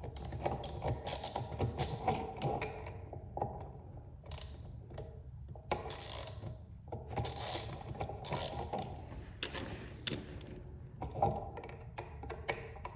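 Hand work on an electrical outlet: a screwdriver turning terminal and mounting screws and the metal outlet and wires being handled, giving scattered small clicks, ticks and knocks with light scraping between them.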